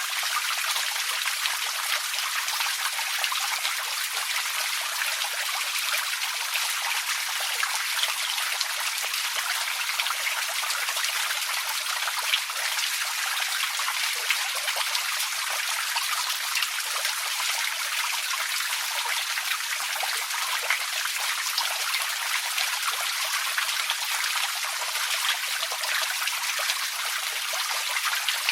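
Small creek trickling and babbling over rocks, a steady flow of water with many fine splashes.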